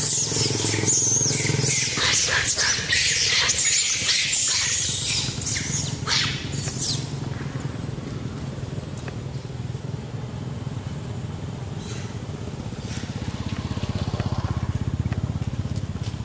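Macaques screaming in a fight: shrill, wavering shrieks for about the first seven seconds, then trailing off into a few short calls. A low engine hum runs underneath and grows louder near the end.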